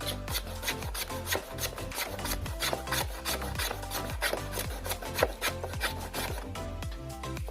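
Rhythmic rasping strokes, about four or five a second, over background music with a steady bass line.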